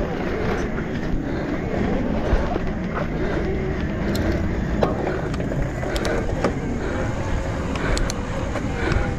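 Electric mountain bike ridden fast down a dirt trail: a steady low rumble of wind on the microphone and tyres rolling over the ground, with the bike giving sharp clicks and knocks over bumps several times.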